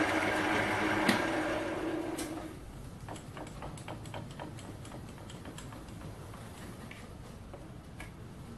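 Chinese metal lathe finishing a cut on cast aluminium, its running noise dying away over the first two and a half seconds, with a sharp click about a second in. After that come a series of light metallic clicks and ticks as the carriage handwheel is wound and the part and tooling are handled.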